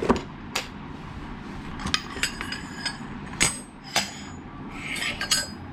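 Metal spanners from a Stanley 70-380E double open-end set clinking and knocking against each other as they are handled. There is a series of sharp, irregularly spaced metallic clinks, several with a brief ring.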